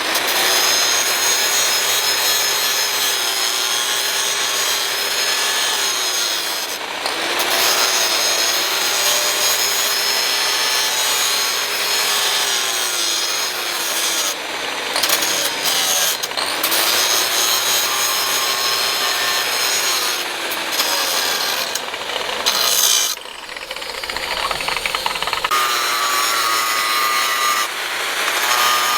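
Handheld electric power tool cutting or abrading the work. Its motor whine repeatedly sags and picks back up as it is pressed in and eased off, with a short break about two-thirds of the way through.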